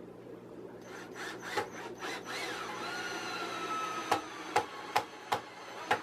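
Drill driving a screw into the wooden rack: a motor whine that dips in pitch and then holds steady, followed by several sharp clicks near the end as the bit slips on the worn heads of reused screws.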